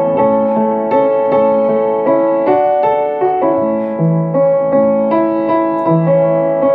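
Piano playing an instrumental interlude between sung verses: a melody over sustained chords, with a new note struck about every half second.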